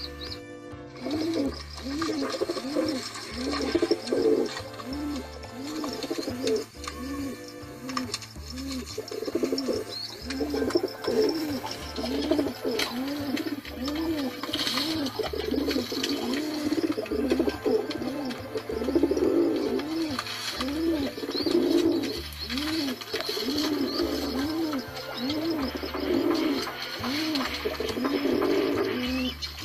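Pigeons cooing: a continuous run of low, rising-and-falling coos, about one and a half a second.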